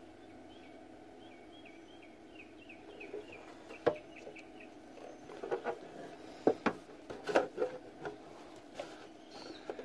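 A plastic refrigerator shelf bin being handled and turned over, giving several sharp knocks and clatters, the loudest a cluster about two-thirds of the way through. During the first three seconds a bird calls a quick series of about ten short, high notes.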